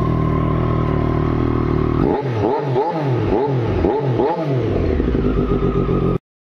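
Triumph Street Triple's inline three-cylinder engine idling steadily through an aftermarket slip-on silencer. From about two seconds in, it is revved in a quick series of throttle blips, each rising and falling back, then it settles to idle again. The sound cuts off suddenly near the end.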